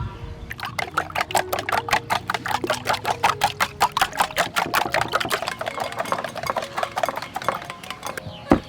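Rapid, even tapping, about six or seven light strikes a second, that thins out and stops near the end.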